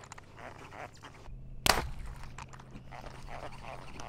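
A bowfishing bow shot: one sharp snap of the bowstring as an arrow is loosed at a carp in the shallows, about one and a half seconds in. A low steady hum runs underneath from just before the shot.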